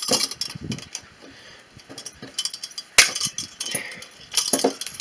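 Steel trap chain rattling and clinking as bolt cutters are worked onto its top link, with one sharp snap about three seconds in.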